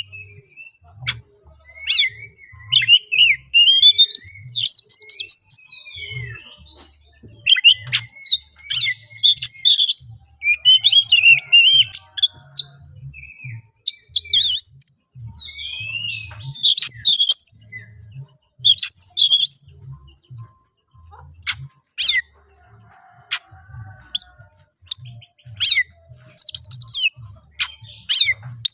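Oriental magpie-robin (kacer) singing an insistent, agitated challenge song in repeated bursts of varied whistles, fast trills and sharp clicking notes with short pauses between them.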